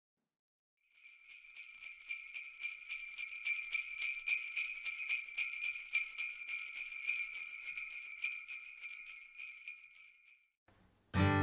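Jingle bells shaken in a steady rhythm, about four or five shakes a second, starting about a second in and fading out near the end. Guitar music starts just before the end.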